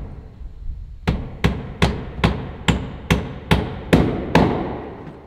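Hammer blows, about nine sharp strikes at a steady two to three a second, starting about a second in; the last few are loudest and ring on briefly.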